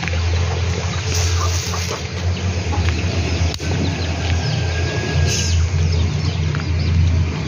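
Kampung chickens clucking over a loud, steady low hum. A single sharp click comes about three and a half seconds in.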